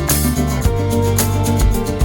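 Upbeat background music with a steady beat and plucked guitar.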